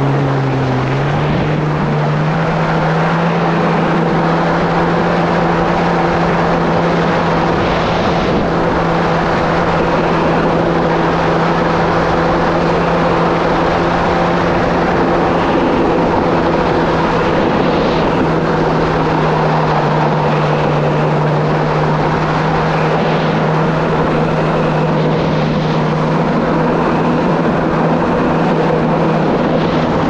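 Kawasaki SX-R 1500 stand-up jet ski's four-cylinder engine running under way. The pitch steps up slightly about a second in, then holds steady over a constant rush of noise.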